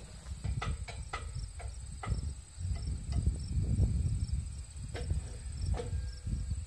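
Crickets chirping steadily under a low, uneven rumble. Several sharp metallic clicks and knocks come as a steel sawmill bunk is shifted on its bolted track: a cluster about a second in, one at two seconds, and two more near the end.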